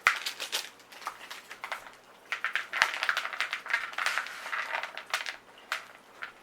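Plastic bag of chocolate chips crinkling and rustling in irregular bursts, with small clicks, as the chips are poured out into cookie dough.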